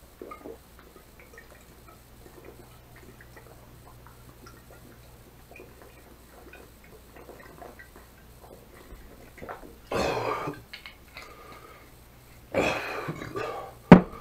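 A man gulping vodka straight from a glass bottle, with faint swallows. Two loud, rough breaths or coughs follow, the first about ten seconds in and the second near the end. Then a sharp knock as the bottle is set down on the table.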